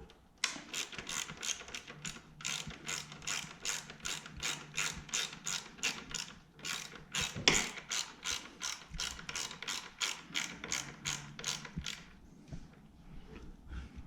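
Hand ratchet wrench clicking in quick, even strokes, about four clicks a second with a few short pauses, as a fastener is tightened on the exhaust. The clicking stops about twelve seconds in.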